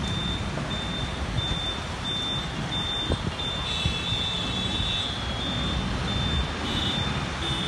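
Dense mixed road traffic at a busy roundabout: motorcycle, car and auto-rickshaw engines and tyre noise, steady throughout. Over it, a high-pitched electronic beep repeats in short pulses about twice a second. There is a short knock about three seconds in.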